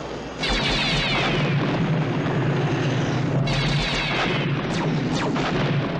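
Science-fiction space-battle sound effects: a steady low spacecraft engine rumble, with two bursts of rapid laser fire, the first about half a second in and the second about three and a half seconds in, and sharp cracks near the end.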